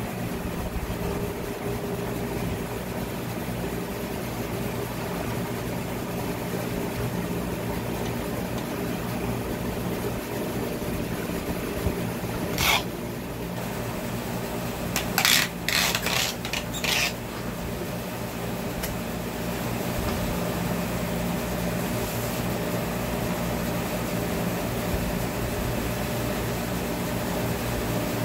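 Steady hum of a large electric fan running. A few short, sharp handling noises come about halfway through, while watermelons are being sorted among plastic crates.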